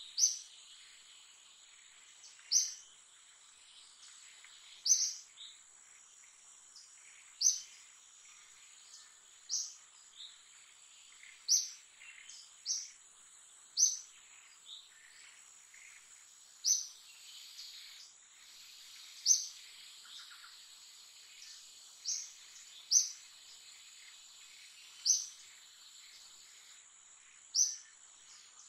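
A bird repeats a short, sharp, high chirp about every two to three seconds, over a steady high-pitched insect drone.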